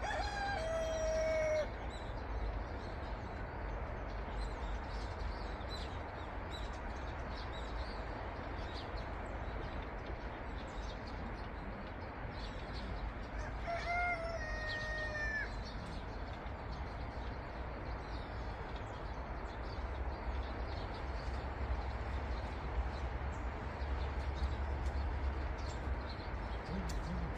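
Rooster crowing twice, near the start and again about halfway through, each crow a long held call. Small birds chirp steadily throughout, over a low background rumble.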